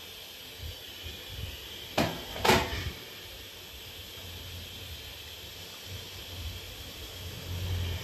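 Pressure cooker hissing faintly and steadily on the stove as it builds toward its next whistle, with two sharp knocks about half a second apart midway through.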